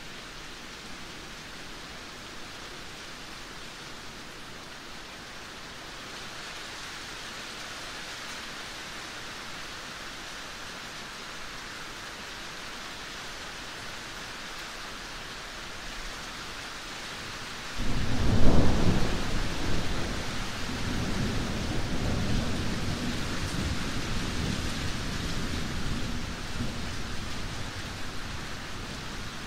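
Steady rain, an even hiss. About eighteen seconds in, a sudden loud thunderclap breaks in and rolls on as a low rumble that slowly fades.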